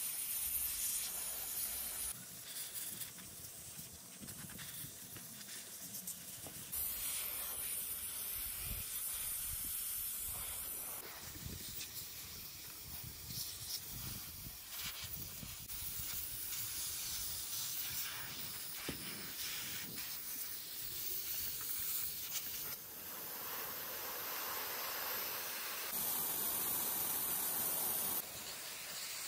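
Compressed-air blow gun hissing as it blows over a CRT television's circuit board and deflection yoke, in several stronger bursts of air.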